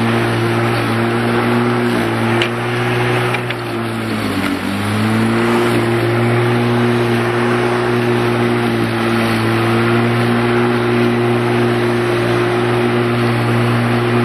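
Bosch Rotak 34R corded electric rotary mower running, its 1300 W motor giving a steady hum as it is pushed through long grass. About four seconds in the pitch drops briefly, then picks back up.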